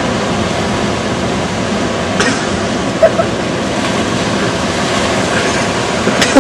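Steady, even roar of ocean surf breaking on a beach, with a short louder sound about three seconds in.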